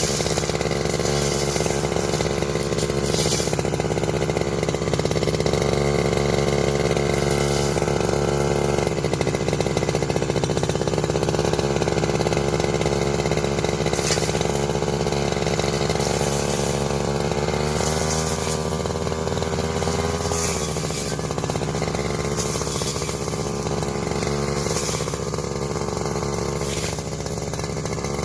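Grass cutter's small engine running steadily under cutting load, its speed rising and falling briefly about two-thirds of the way through.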